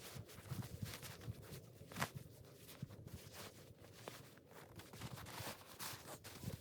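Faint, irregular rustling with scattered sharp clicks, the sharpest about two seconds in.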